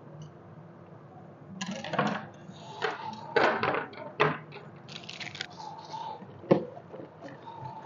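Handling noises from three cake knives being set down on a wooden tabletop beside plastic wrapping: a run of clatters and rustles starting about a second and a half in, then a cardboard box being handled, with one sharp knock near the end.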